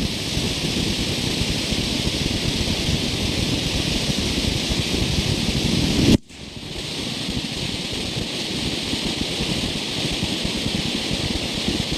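Homemade firework fountains (volcanoes) spraying with a loud, steady rushing hiss. About halfway through the hiss cuts off abruptly, then builds back up to a steady rush.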